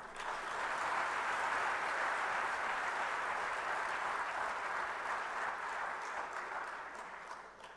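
Audience applauding: steady clapping that begins as soon as the sentence ends and dies away near the end.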